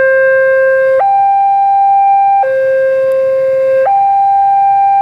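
Electronic two-tone warning alarm: a low and a higher steady tone alternating, each held for about one and a half seconds.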